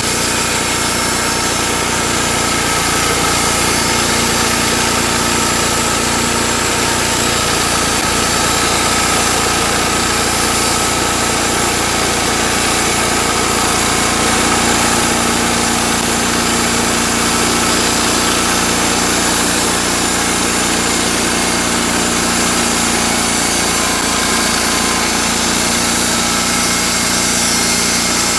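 Engine of a portable hydraulic bandsaw sawmill running steadily.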